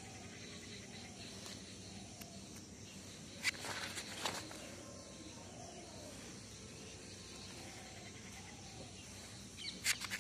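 Paper pages of a spiral-bound notebook being turned by hand: two short rustles of paper, one about three and a half seconds in and another near the end, over faint steady background noise.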